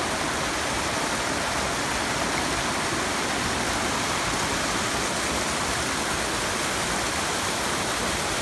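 Small mountain creek cascading over rocks: a steady rush of water.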